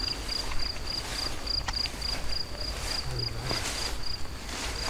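A cricket chirping steadily in a meadow, short high chirps at an even pitch about four times a second, with the swishing of footsteps through tall grass.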